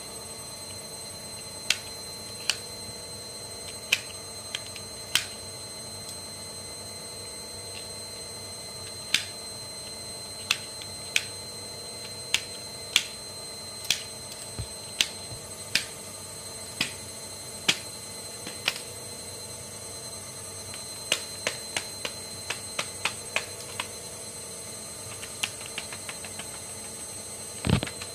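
Irregular sharp plastic clicks from fidget toys being handled and turned, such as a rainbow puzzle ball, over a steady faint high whine. A louder thump comes near the end.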